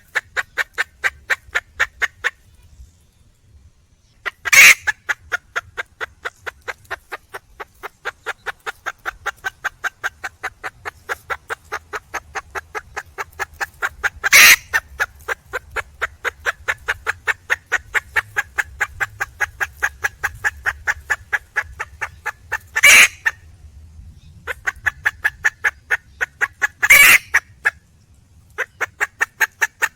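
Red junglefowl hen calling with a fast, even run of short clucking notes, about five a second, broken off briefly a few times, with a few louder, sharper notes standing out; this is the wild hen's call for a mate.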